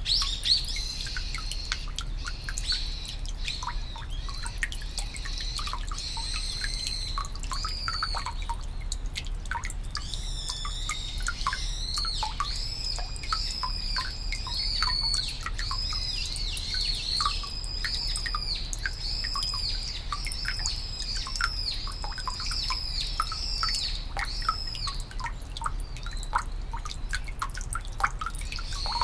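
Water dripping and trickling into the stone basin of a Shinto shrine's hand-washing pavilion (temizuya), a steady patter of small drips. A small bird sings over it: high notes in the first several seconds, then a fast run of repeated short high notes, about one and a half a second, from about ten seconds in until near the end.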